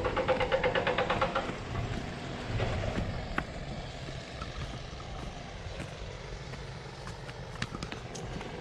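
Wind buffeting the microphone with a steady low rumble while walking a rocky mountain path, with a few sharp clicks of steps on stone. A brief pitched, pulsing sound comes in the first second and a half.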